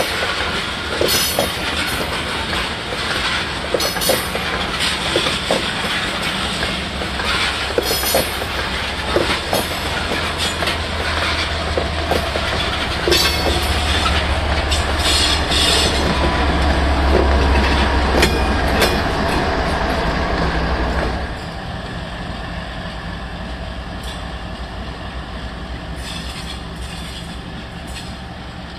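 Freight cars of a BNSF rock train rolling past with a clickety-clack of wheels over rail joints and some wheel squeal. A BNSF diesel locomotive then passes close, its engine rumble building to the loudest point about two-thirds of the way through. About 21 seconds in the sound drops abruptly to a quieter, steady rumble.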